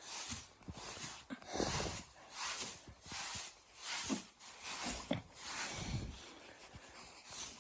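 A dog's short, noisy breaths and sniffs, coming irregularly about once a second.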